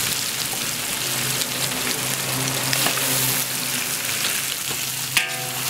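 Sliced pig liver sizzling in a very hot wok of oil and chopped chili as it goes in: a steady crackling hiss, with occasional light clicks of the spatula.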